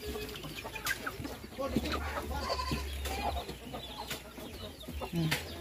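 A flock of native chickens clucking in short, scattered calls as they crowd round to feed, with a few sharp clicks among them.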